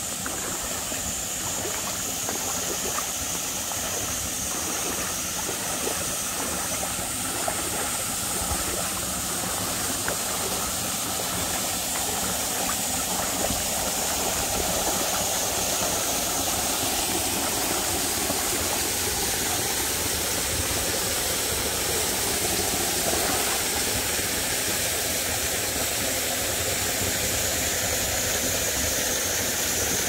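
Shallow stream water flowing steadily over gravel and stones, an even rushing with a steady high hiss above it.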